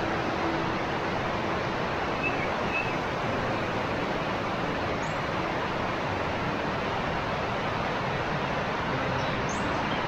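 Steady, even rushing of a waterfall's falling water, with a few faint bird chirps about two seconds in and again near the end.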